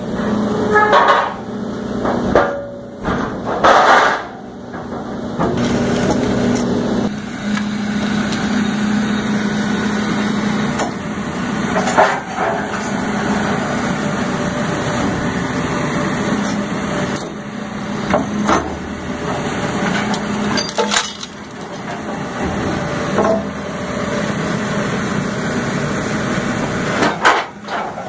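2003 Sierra T500 hydraulic shear-logger-baler working scrap steel: a steady low hum from the machine runs throughout, broken by irregular loud clanks and cracks as the metal is pressed and sheared.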